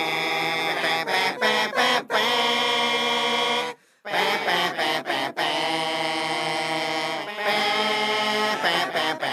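Music opening with a chant-like vocal on long held notes. It cuts out briefly just before four seconds in, then resumes.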